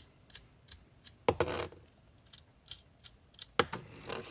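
Small brass standoffs being unscrewed by hand from a circuit board and dropped onto a desk: light metal clicks of handling, with two louder clinks about a second in and near the end as standoffs land.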